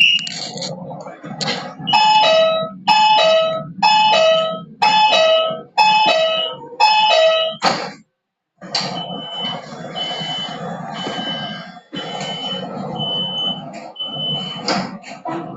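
Electronic warning chime inside a CSR Mitsubishi electric multiple-unit train: a three-note falling chime repeated about six times, roughly once a second, over the train's low rumble. After a brief dropout it is followed by a single high beep repeating about six times, under a second apart, typical of the door-closing warning.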